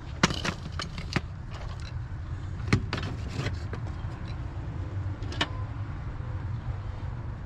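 A handful of sharp clicks and light taps, about eight in all, over a steady low rumble. The loudest come just after the start and a little under three seconds in.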